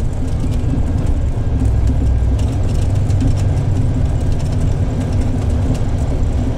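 Intercity bus's diesel engine running through a modified exhaust, a steady low rumble.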